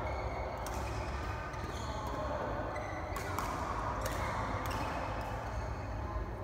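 Badminton doubles rally on an indoor court: several sharp racket strikes on the shuttlecock, a second or less apart, with shoes squeaking on the court floor, over a steady low hall hum.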